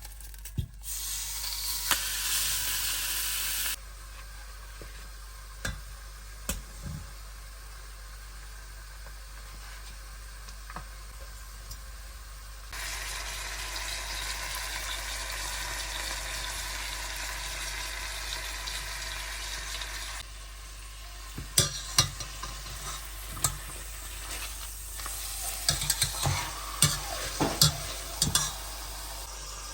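Food sizzling in a hot pan, heard in stretches, with scattered sharp clicks and knocks that come thicker in the last several seconds.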